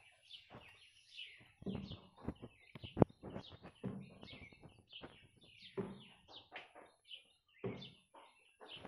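Small birds chirping repeatedly, in short high calls. Rustling and clicking come from hands working at a branch among the leaves, with one sharp knock about three seconds in.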